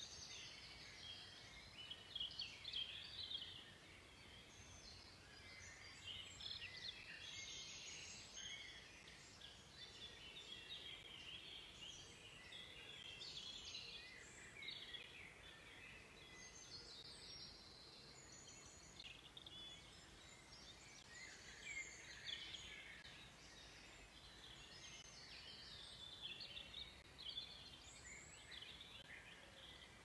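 Faint woodland birdsong: several small birds singing and chirping in short, overlapping phrases, over a low background hush.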